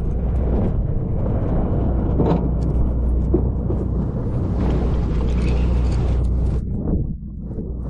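Steady low rumble of a sportfishing boat's engine, with a rushing wash of water and wind over it that swells in the middle and eases off near the end.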